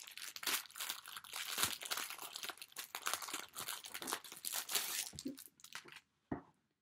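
Wrapping around a boxed item being crinkled and torn open by hand, an irregular crackling that stops about six seconds in, followed by a single short knock.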